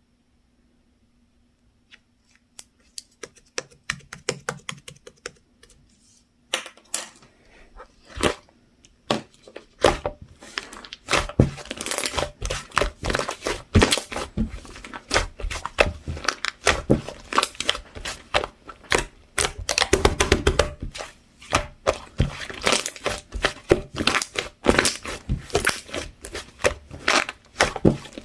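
White, fluffy, clay-textured whipped-cream slime being squeezed and pressed by hand, giving crackling, tearing and popping clicks. The clicks come sparse and soft at first, then turn dense and continuous from about six seconds in.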